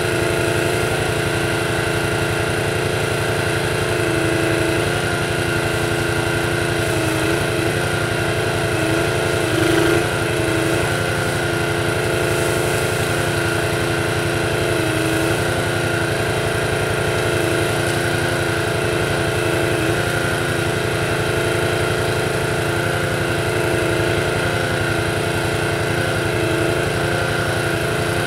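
Small petrol engine running steadily to power the hydraulics of a Jussi 400 ATV trailer crane. Its pitch dips briefly a few times as the grapple crane is worked.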